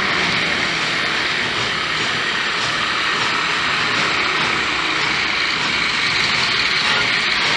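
Loud, steady propeller-aircraft engine drone from a twin-propeller flying-wing stunt-show aircraft, both propellers spinning.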